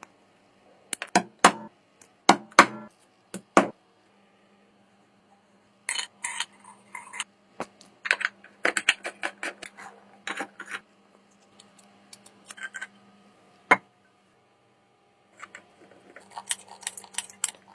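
Small metal oil can being handled: irregular sharp metallic clicks, taps and clinks, in clusters with short pauses between, over a faint steady hum.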